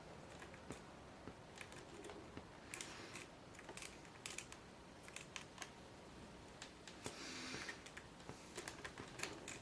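Faint, irregular small metallic clicks and taps, some in quick clusters, from a lock pick and tension wrench working the pin stacks of a Grainger 1XRV5 padlock with a Yale keyway and spool security pins.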